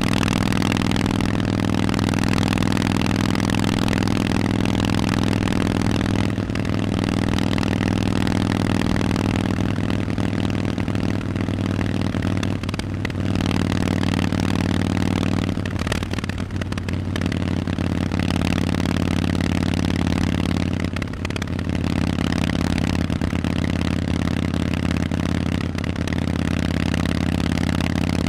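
Harley-Davidson Forty-Eight's air-cooled V-twin running through Vance & Hines aftermarket exhausts, holding a mostly steady engine speed while riding, with brief easings of the throttle a few times.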